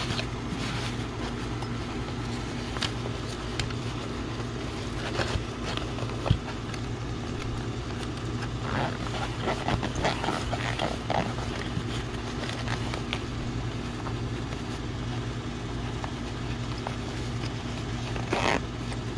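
Rustling of a fabric carry bag and the rasp of its front-pocket zipper being worked by hand, in short scattered bursts, over a steady low machine hum.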